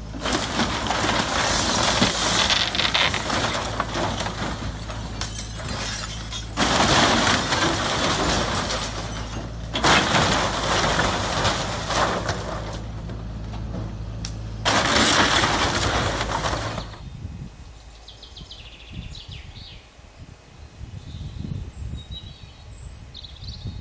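A Hyundai hydraulic excavator running while its grapple tears apart a wooden cabin: four long bouts of loud crashing and splintering of wood and corrugated sheeting over the steady hum of its engine. The destruction stops about two-thirds of the way through, leaving a quieter outdoor background.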